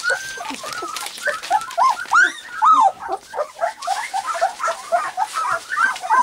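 Litter of three-week-old English cream golden retriever puppies whining and squeaking, many short high calls overlapping, with a few louder drawn-out whines about two to three seconds in.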